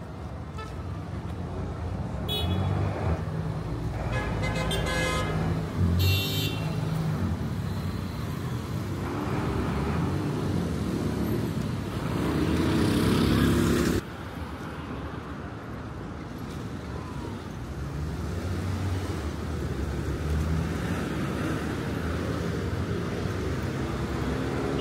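City street traffic: engines of cars, a bus and motorcycles running and passing, with a few short horn toots in the first several seconds. About halfway through, a louder passing engine swells up and cuts off suddenly.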